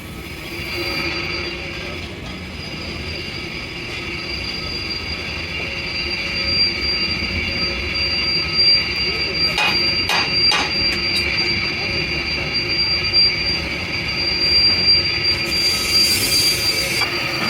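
A metalworking machine running with a steady high-pitched squeal that grows slightly louder, with a few sharp clicks about ten seconds in.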